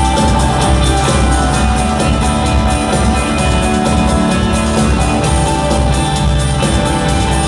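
Rock band playing live: an instrumental passage with guitar, without singing.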